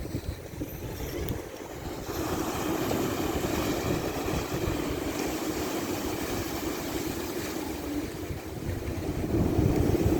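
Ocean waves washing in, with wind buffeting the microphone as a low rumble. A wave comes in about two seconds in, and the wash swells louder near the end.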